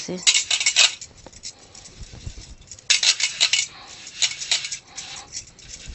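A kitchen sieve being shaken and tapped to sift burnt banana-leaf ash. It gives quick runs of rattling clicks shortly after the start and again about three seconds in, with softer scattered taps between.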